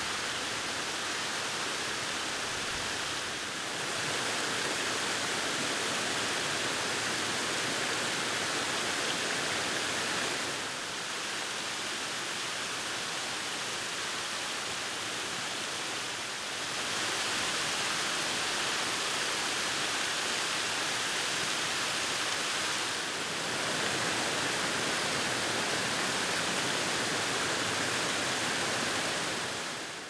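Water pouring over stepped stone ledges of a small waterfall, a steady splashing rush. The level shifts slightly a few times and fades out at the very end.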